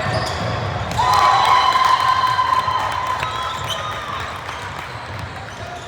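Basketball bouncing on a gym floor during play, with a long, wavering squeak starting about a second in and lasting about three seconds.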